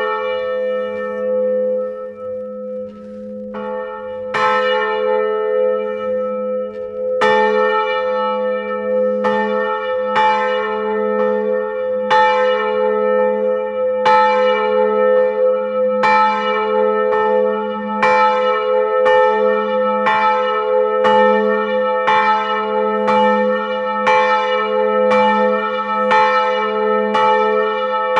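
A 550 kg bronze church bell, cast in 1988 by Jan Felczyński's foundry in Przemyśl, swinging and ringing on its electric linear drive. The clapper strikes a few seconds apart at first, then about once a second as the swing builds, and each stroke rings on over a steady deep hum.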